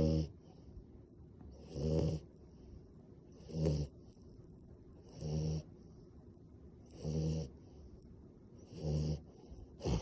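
French bulldog snoring in a steady rhythm, one snore about every two seconds.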